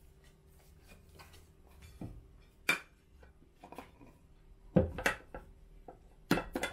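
Aluminium ring cake pan being turned out onto a plate and tapped to release the cake: scattered knocks and clinks of the metal pan against the plate, one sharp knock in the middle and quick runs of taps in the second half.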